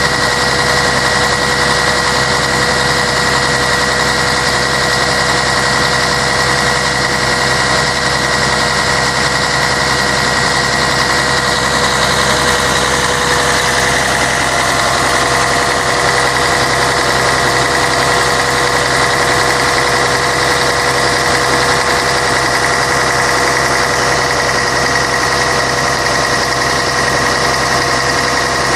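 Scania K113 bus's diesel engine running steadily, with a constant whine over the engine note; the tone shifts slightly about halfway through.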